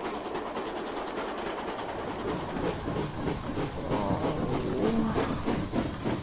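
Steam locomotive sound effect: rhythmic puffing with wheels running on the rails, growing louder about two seconds in.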